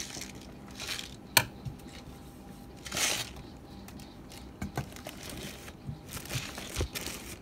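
Plastic courier mailer bag crinkling and rustling in short bursts as it is handled, with a sharp click about a second and a half in.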